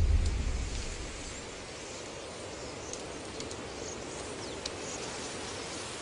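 Outdoor ambience under a flock of starlings: a steady hiss with a few faint, high bird chirps, after a low rush that sets in at the start and dies away over about a second.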